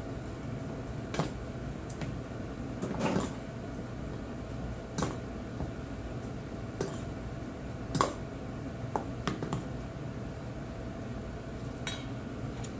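Metal spoon knocking and scraping against a stainless steel bowl while mixing rice with sushi vinegar, short irregular clinks every second or so, the loudest about three and eight seconds in. A faint steady hum runs underneath.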